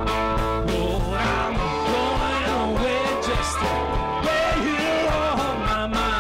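Live electric blues-rock band, with electric guitars, bass and drums, while an amplified harmonica plays bending, wailing lines over the top.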